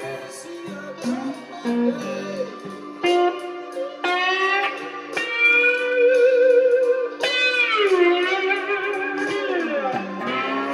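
Blues slide guitar playing bottleneck licks, with notes gliding up and down between held tones and a long downward slide a little past the middle.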